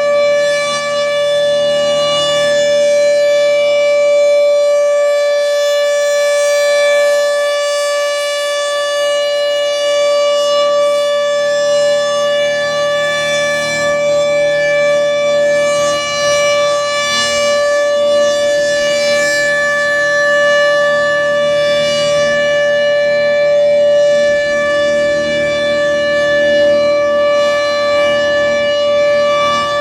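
Federal Signal Thunderbolt 1000A rotating outdoor warning siren sounding its steady alert signal. One loud, sustained tone holds a constant pitch with a stack of overtones, swelling and easing slightly in loudness as the siren slowly rotates.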